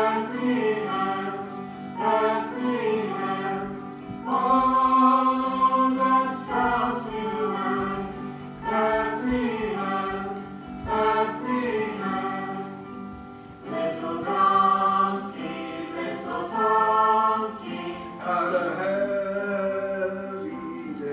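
A choir singing a Christmas carol in sustained phrases with musical backing.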